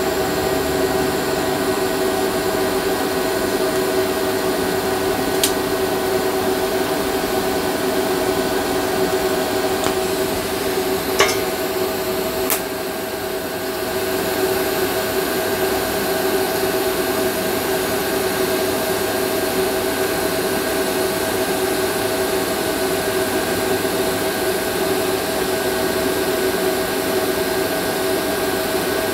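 TIG welding arc on a motorcycle egg fuel tank, a steady buzzing hiss with a constant hum. There are a few sharp ticks about a third of the way in, and the level dips briefly just before the middle.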